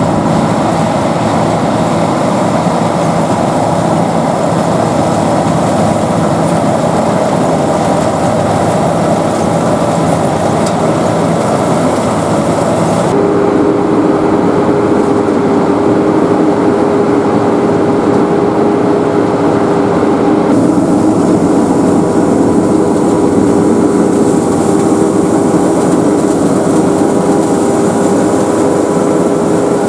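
Sakpattana SS100 mini rice combine harvester running, its engine and machinery giving a loud, steady mechanical sound. About thirteen seconds in the sound changes abruptly and a steady hum comes in, and it shifts again about twenty seconds in.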